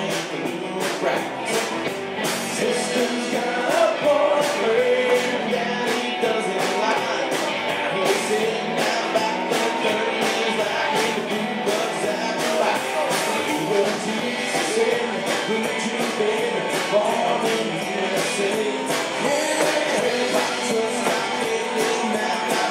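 Live country band playing: a singer over electric guitars, bass and drums, with a steady beat.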